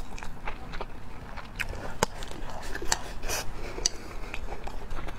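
Chopsticks clicking and scraping against a ceramic rice bowl as rice is shoveled into the mouth, with chewing in between: a string of short, sharp clicks at irregular intervals.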